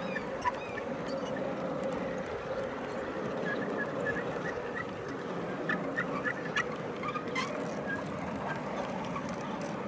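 G scale model grain hopper cars rolling past on garden railway track: a steady rolling rumble, with sharp clicks in the second half as wheels pass over rail joints. Birds chirp faintly in the background.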